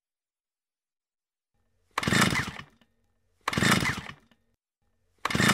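Chainsaw revved in three short bursts, about one and a half seconds apart, each dying away quickly.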